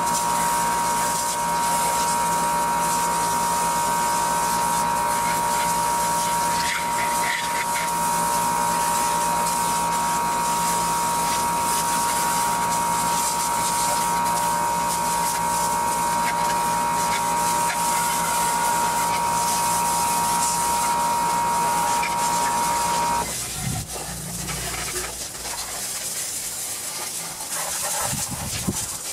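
Water hissing from a garden hose spray nozzle as it rinses a garden tractor's engine and metal frame, with a steady whine alongside that cuts off suddenly near the end, after which the spray goes on more quietly.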